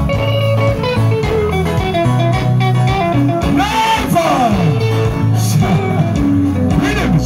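Live band music: guitar lines over a steady bass line, played through a stage sound system, with a voice sliding through a few phrases near the middle and end.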